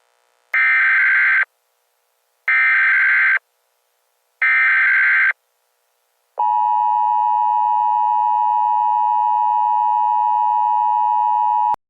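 Emergency Alert System tones: three short bursts of SAME digital header data, each about a second long with a second's gap between them, then the steady two-tone attention signal held for about five seconds before it cuts off abruptly. This sequence marks the start of an emergency alert broadcast.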